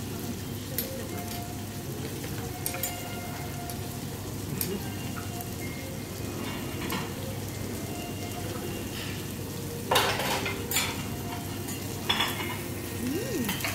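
Wagyu beef steaks sizzling on a teppanyaki steel griddle, with a knife, fork and spatulas clicking and scraping on the hot plate. Two louder metal scrapes come near the end.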